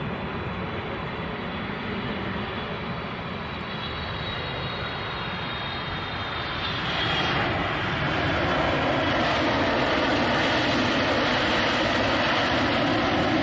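Jet airliner engines running: a steady rush with a faint high whine falling in pitch, growing louder about seven seconds in and staying loud.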